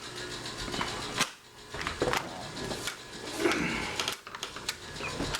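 Scattered clicks and light metal knocks from an old deadbolt lock and its screws being handled and worked out of a door.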